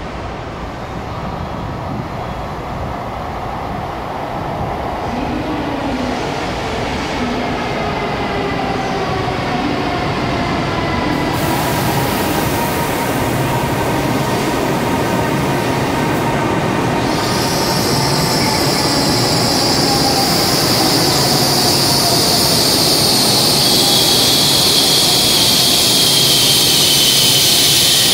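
N700S-series shinkansen braking into a station platform: a growing rush as the train runs in, the whine of its traction motors falling in pitch as it slows, and a high squeal that sets in past the halfway point and grows to the end.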